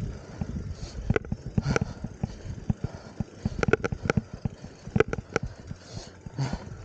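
Downhill mountain bike rattling over a rutted dirt trail: irregular sharp clicks and knocks from the bike's chain and frame as the tyres hit the ruts, over a low rumble.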